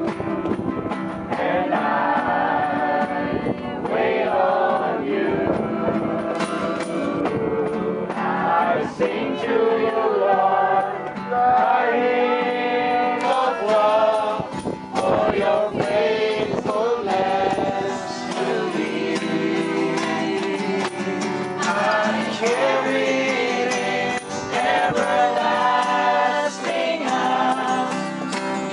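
A congregation singing a worship song together, many voices in chorus.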